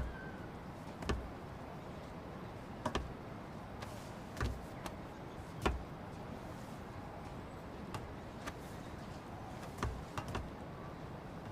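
A scattering of soft, irregular knocks and scuffs, roughly one every second or so, over a steady background hiss.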